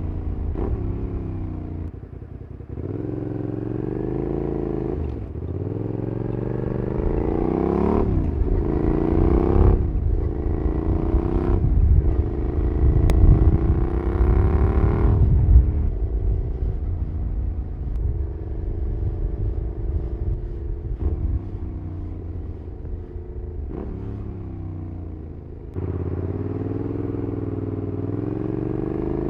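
Suzuki SV650's 90-degree V-twin engine through a Cobra SC3 aftermarket exhaust, revving up through the gears with quick upshifts, each marked by a sudden drop in pitch. After the loudest stretch in the middle it settles into steadier, lower running, with wind rumbling on the microphone underneath.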